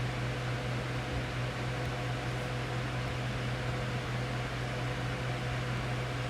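Steady fan noise with a low, even hum underneath, unchanging throughout.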